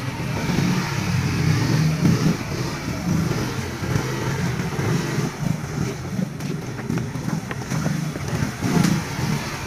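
Small motor scooter engines running at low speed, moving off over planks and a dirt path.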